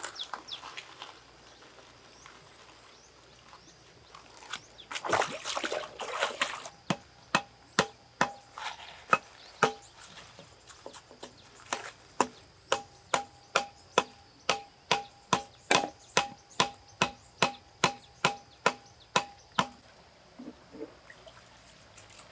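A blade chopping steadily on a wooden board, about two to three strokes a second, each stroke with a short ring. A brief pouring or splashing sound comes shortly before the chopping starts.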